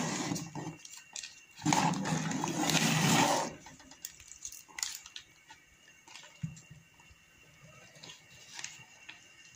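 Metal spoon stirring thick kheer (rice cooked in milk) in a steel pot: two spells of scraping and sloshing in the first three and a half seconds, then quieter, with a few light clinks of the spoon.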